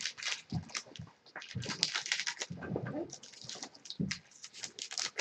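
Trading cards being handled and sorted: soft irregular rustles and light clicks.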